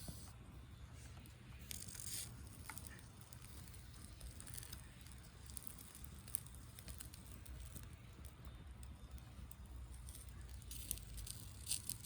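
Wood fire in a fire pit crackling, with scattered small pops, a cluster about two seconds in and another near the end, over a low steady rumble.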